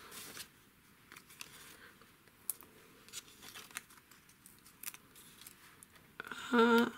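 Faint rustling and a few small ticks and clicks of paper and satin ribbon being handled and arranged by hand.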